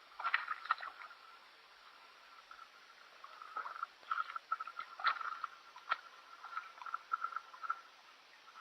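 Frogs calling from the pond: a steady trill at one pitch that pulses in short runs, with scattered light clicks and knocks.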